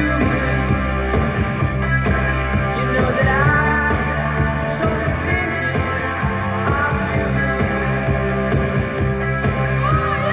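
Rock music playing through a Pioneer SX-580 stereo receiver and JVC bookshelf speakers.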